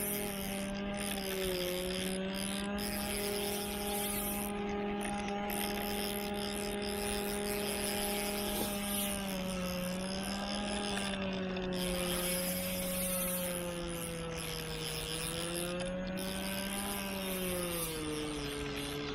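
A motor engine running steadily, its pitch drifting slowly down and back up a few times.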